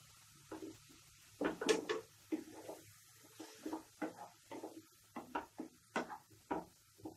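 A spatula scraping and knocking against a frying pan as grated carrot and milk are stirred, in short irregular strokes about twice a second. The loudest strokes come about a second and a half in.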